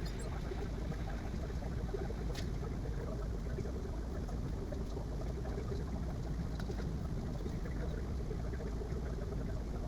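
Bambu Lab A1 3D printer running: a steady whirring noise with a few faint ticks.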